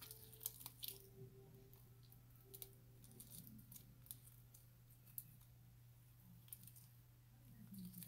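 Slime stretched and squeezed by hand, giving faint, scattered clicks and crackles over a low steady hum.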